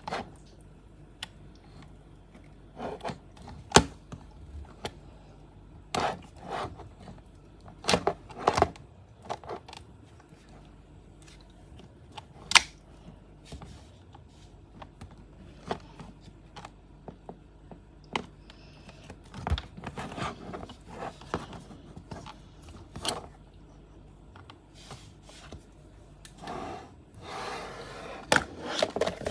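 Toy packaging and a plastic dinosaur figure being handled while unboxing: scattered clicks and taps with short rustles and scrapes, and a longer rustling scrape near the end.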